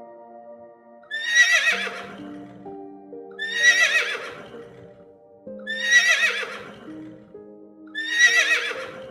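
An animal call, loud and wavering, repeated four times about two seconds apart, each call about a second long, over soft background music of slow sustained notes.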